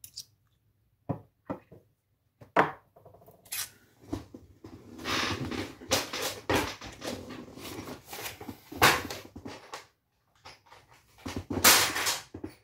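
A metal padlock set down on a hard tabletop with a few sharp clicks. Then comes irregular rustling and clattering of objects being handled, loudest in bursts about five, nine and twelve seconds in.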